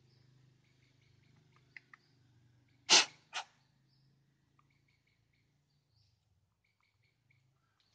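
Two sharp knocks about half a second apart, from handling a chainsaw's bar and chain as they are being fitted. Faint bird chirps repeat in the background.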